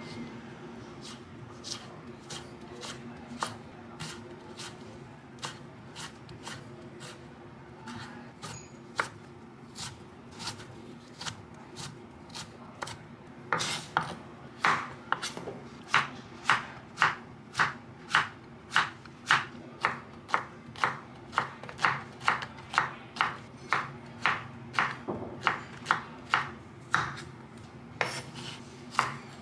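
Kitchen knife cutting carrot on a wooden cutting board: a steady run of knife strikes on the board, soft at first, then louder and quicker, about two a second, from about halfway, with a brief pause near the end.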